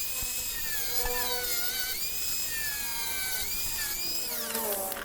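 Small high-speed power tool whining at a steady, high pitch with slight wavers in speed, then spinning down with a steep fall in pitch near the end.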